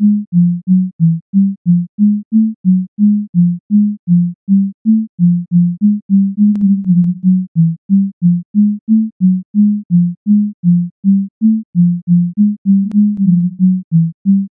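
A run of short, low synthesizer tones, about three a second, hopping between a few neighbouring pitches. These are the notes an interactive floor plays in response to people moving on it.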